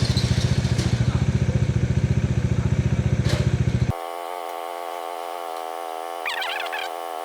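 Single-cylinder motorcycle engine idling with a steady low thump. After about four seconds the thump cuts off abruptly and a quieter, thinner hum follows, with a brief high warbling sound near the end.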